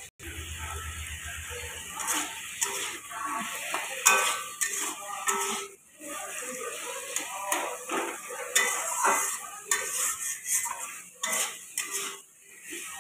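Metal spatula scraping and knocking against a metal kadai as potato chunks in spiced tomato masala are stirred and fried, over the sizzle of hot oil. There are many short irregular strokes. The sound drops out briefly twice, near the start and about halfway through.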